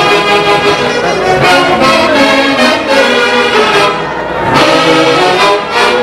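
Andean orquesta típica led by a saxophone section, playing a mulisa in full ensemble with a steady beat; the sound thins briefly about four seconds in.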